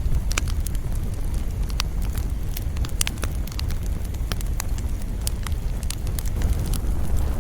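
Campfire burning: a steady low rumble with frequent irregular sharp crackles and pops of the burning wood.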